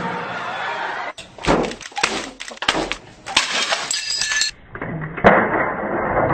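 A run of crunching, smashing blows as drink cans and a book are struck and crushed, then a single loud crack about five seconds in.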